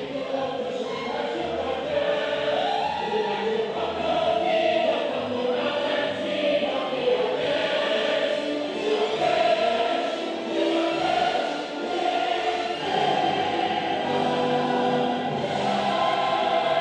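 Music with a choir singing, sustained notes moving from phrase to phrase.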